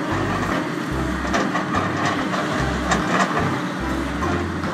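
Hydraulic rock breaker on a tracked excavator hammering rock: a dense, steady pounding over the machine's running engine, with a few sharper knocks.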